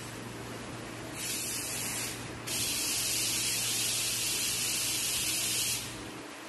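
A loud spraying hiss from workshop machinery, in two spells: a short one about a second in, then a longer one that stops sharply near the end. Under it runs a steady low machine hum.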